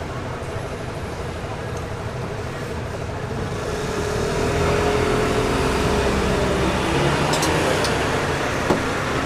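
Steady background din of traffic and machine hum at a street food stall, growing louder about four seconds in, with one sharp click near the end.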